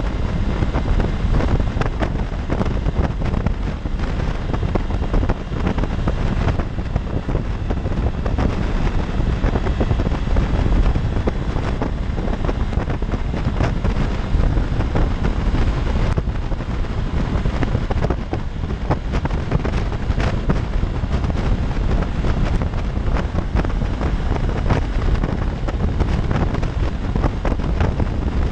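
Steady wind rush over the microphone of a motorcycle riding at freeway speed, with the 2016 Honda CB500X's engine and tyre noise running underneath.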